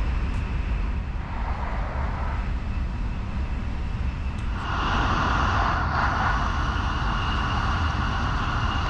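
Cabin running noise of a JR N700S-8000 Shinkansen at speed: a steady low rumble with a rushing hiss. The hiss grows louder about four and a half seconds in.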